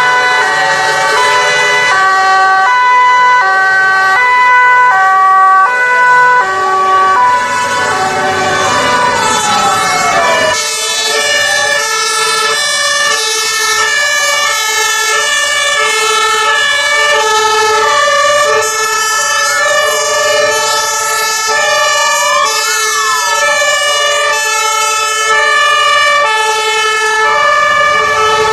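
Several emergency-vehicle sirens sounding together as a convoy passes: German two-tone Martinshorns stepping between two pitches, overlapped by wailing sirens that sweep up and down. About ten seconds in, the mix shifts to a different set of horns as vehicles go by.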